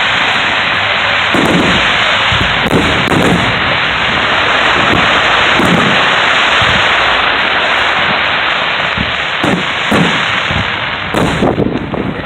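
Aerial fireworks bursting: a loud, dense, steady crackle with several deep booms scattered through it.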